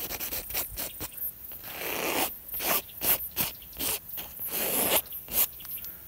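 Palette knife scraping and spreading thick oil paint across a stretched canvas, in short scratchy strokes with little knocks against the canvas and two longer scrapes, about two seconds in and near the end.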